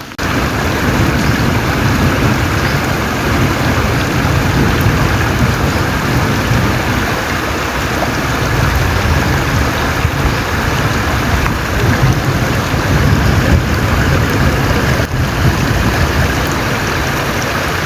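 Heavy rain and running rainwater, a steady loud rushing hiss, with a constant low rumble beneath.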